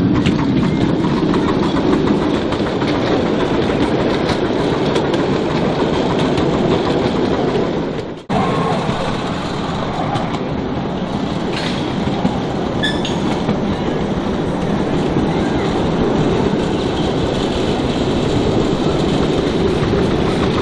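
Steam-hauled 10¼-inch gauge miniature railway train rolling along, its passenger coaches' wheels clacking over the rail joints in a steady run. There is a brief sudden dropout about eight seconds in, after which the running continues.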